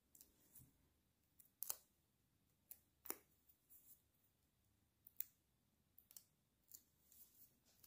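Faint, irregular paper clicks and crackles as the release liner is peeled off the back of a small adhesive foam-tape piece.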